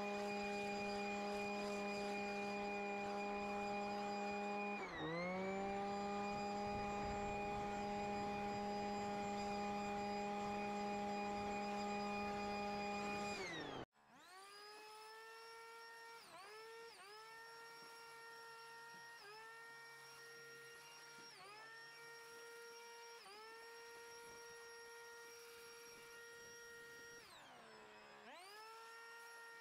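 Leaf blower running with a steady whine, its pitch dipping and recovering about five seconds in. After an abrupt cut about fourteen seconds in, a quieter, higher blower whine follows, dipping in pitch briefly every couple of seconds and dropping sharply near the end.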